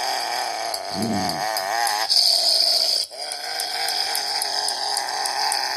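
A dog making drawn-out vocal noises whose pitch wobbles up and down, with a brief break about three seconds in.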